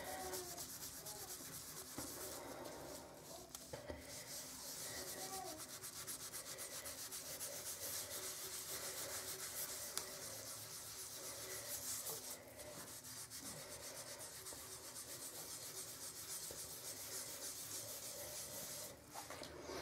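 A wet washcloth scrubbing a porcelain bathtub over a gritty paste of toothpaste and baking soda: a faint, steady rubbing.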